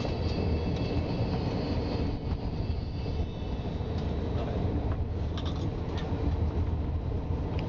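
Passenger train running along the line, heard from inside the carriage: a steady low rumble of wheels on the track. A faint high whine runs over the first three seconds, and a few short sharp clicks come in the second half.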